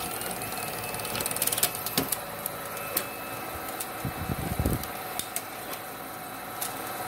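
Elmo SC-18 Super 8 sound projector running with a steady mechanical hum, with scattered sharp clicks and a low thump about four seconds in, as a hook tool is worked in the film path. The automatic threading has failed to take the film past the sprockets.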